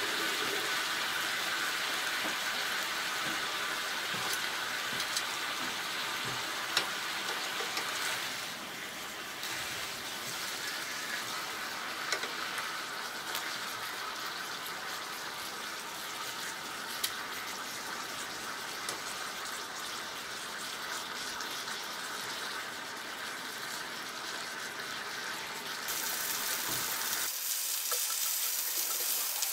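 Chicken thighs frying on a hot griddle plate over a portable gas stove: a steady sizzle, with a few sharp clicks of metal tongs as the pieces are turned.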